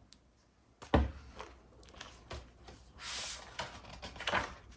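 A knock about a second in, then scattered clicks and a brief rustle, like objects or paper being handled.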